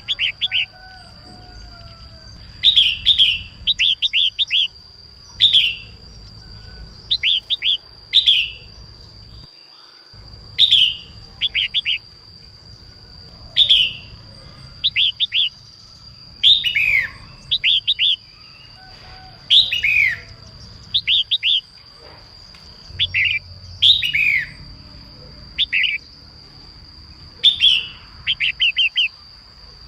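Female red-whiskered bulbul singing: short phrases of quick chirpy notes, some sliding down, repeated every second or two, the kind of song played to stimulate male bulbuls to sing. A steady thin high whine runs underneath.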